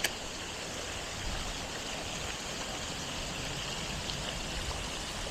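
Steady rain falling, an even hiss with no let-up, with one brief click right at the start.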